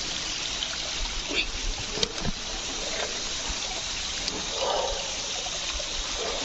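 Steady trickle of water among rocks, with a few faint knocks in the first few seconds.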